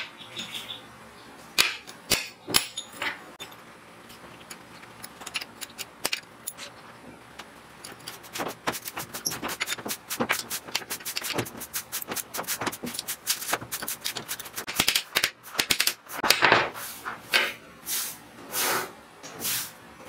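Steel parts clicking and clinking against a steel plate, and a wrench clicking on bolt heads as nuts are tightened. A run of quick small clicks comes in the middle, and a few louder metal knocks come near the end.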